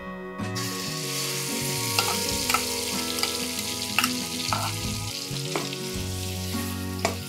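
Boiled masoor dal poured into hot oil with fried onion and dried chillies in a metal frying pan, sizzling as it hits from about half a second in. It is then stirred with a metal spatula, which gives a few sharp scraping clicks against the pan over the sizzle.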